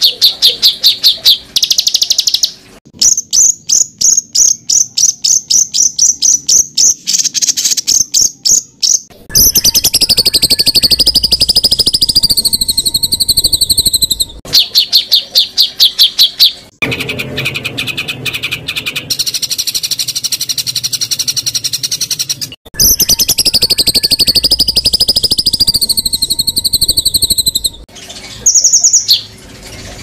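Edited recordings of songbirds used as 'masteran' training song for cage birds. Rapid-fire runs of sharp chips, the 'tembakan', alternate with long high warbling whistled phrases, and each section cuts off abruptly into the next.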